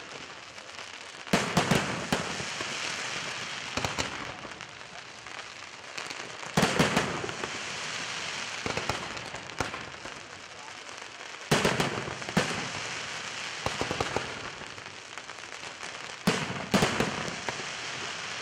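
Aerial fireworks display: loud bangs of bursting shells every few seconds, about six in all, with dense crackling between them.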